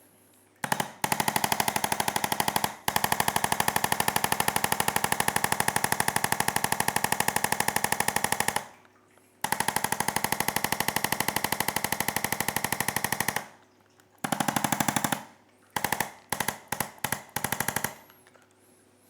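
Handheld percussion massage gun hammering rapidly against the body in long runs, stopping twice, then in short on-off bursts near the end.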